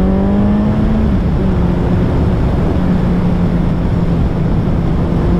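Suzuki Hayabusa inline-four engine running at road speed: its note climbs slightly at first, dips briefly about a second in, then holds steady. Wind rush on the microphone is mixed in.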